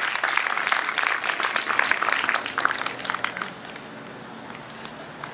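Audience applauding, many hands clapping at once; the clapping thins out and dies away about three and a half seconds in.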